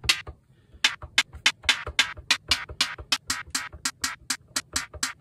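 An FM-synthesised hi-hat on a Roland MC-101 groovebox playing a quick run of short, sharp hits, about four a second. The decay length of its noise layer is being changed with a knob.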